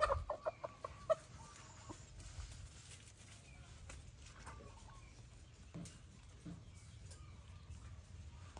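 Rooster giving a rapid run of about seven short clucks in the first second or so, then falling quiet.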